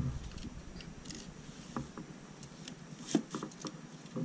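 Small plastic LEGO pieces clicking and tapping as they are handled and pressed onto clips, a few scattered sharp clicks over light rustling.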